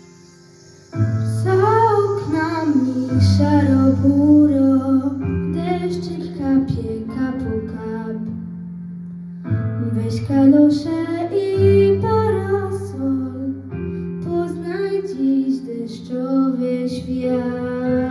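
A female voice singing a slow, tender melody over instrumental accompaniment with sustained low bass notes, coming in about a second in after a quiet start.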